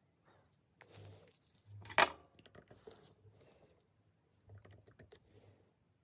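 Small handling noises of nail-art tools at a table: soft rustles and light taps, with one sharp click about two seconds in.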